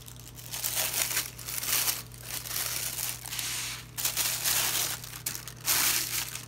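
Plastic packaging crinkling in irregular bursts as hands unwrap a camera body from a thin plastic bag and foam wrap.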